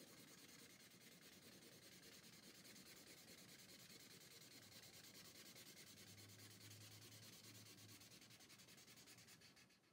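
Green felt-tip marker scribbling on paper in quick, repeated strokes as a letter is filled in with colour: a faint, steady scratchy rubbing.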